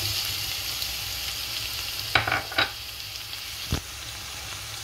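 Fried liver pieces and browned onions sizzling in oil in a frying pan, stirred with a wooden spoon, with three sharp knocks at about two seconds, two and a half seconds and near four seconds.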